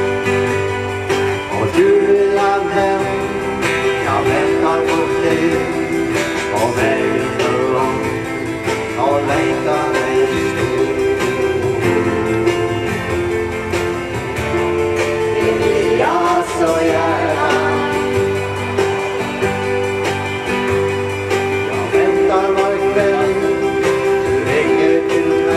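Live song with voices singing to two strummed acoustic guitars. The music runs without a break.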